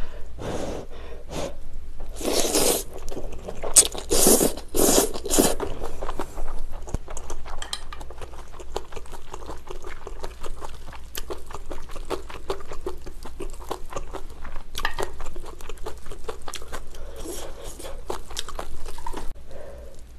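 A person eating pad thai rice noodles close to the microphone: the noodles drawn into the mouth with loud slurping a few seconds in, then steady wet chewing with small smacks and clicks.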